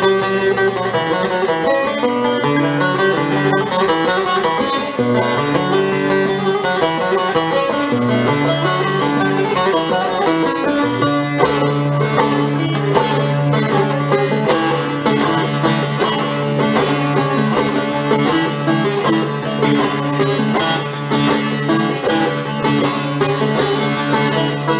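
Bağlama (long-necked Turkish saz) playing a quick plucked melody in an instrumental interlude of a Turkish folk song. From about halfway, a steady low note sounds beneath it.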